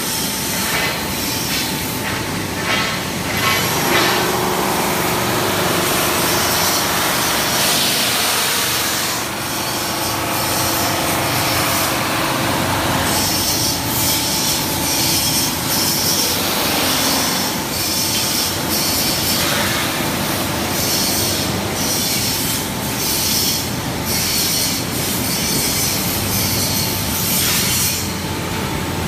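DT1000 wood polishing machine running: a loud steady mechanical noise with a high screeching edge and a few faint steady tones, with no pauses.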